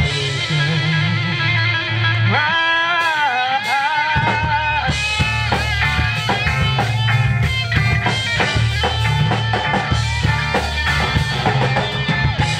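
Live country-rock band playing an instrumental passage without vocals: electric guitars, electric bass and drum kit. About two seconds in, a high lead line bends and wavers for a couple of seconds over the steady beat.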